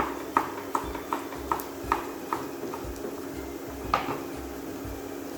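Knife chopping vegetables on a cutting board, even strokes about two to three a second. The chopping stops a little under three seconds in, and one louder knock comes about a second later.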